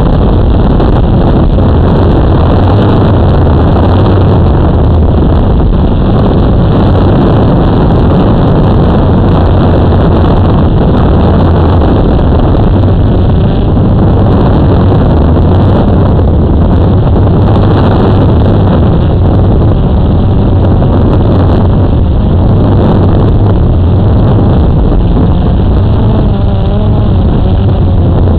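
Drone's motors and propellers running loudly and steadily, picked up by the camera on the drone itself, with wind noise over the microphone; a few wavering tones come in near the end.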